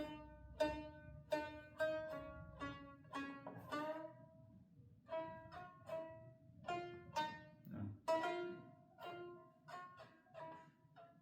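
Homemade plucked string instrument played as a slow run of single notes, about two a second, each ringing briefly and dying away, with a short pause near the middle. It is a rough build whose notes were not laid out by precise measurement, which the maker gives as the reason it sounds the way it does.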